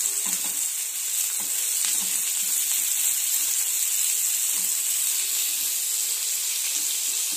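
Chopped onion, tomato and green chillies sizzling steadily in hot oil in a nonstick frying pan, being fried until soft. A wooden spatula stirs through them now and then.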